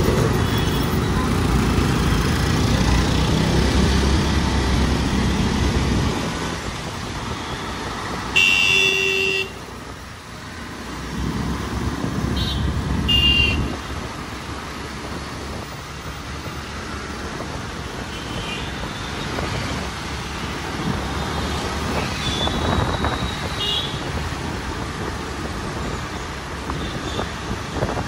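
City road traffic: a steady rumble of engines and tyres, heavier for the first several seconds. Vehicle horns honk over it, with one loud blast about a third of the way through, a couple of short toots soon after, a longer horn later and quick beeps near the end.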